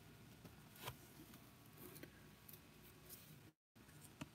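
Near silence, with faint clicks and light rustling of cardboard trading cards being shuffled and handled; the clearest click comes about a second in.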